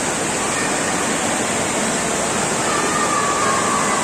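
Water from a statue fountain splashing and rushing steadily, with faint voices in the background.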